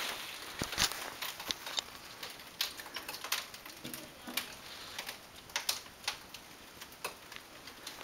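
Scattered small clicks and ticks of broken glass and debris from a smashed CRT television, a few a second, irregular and fading.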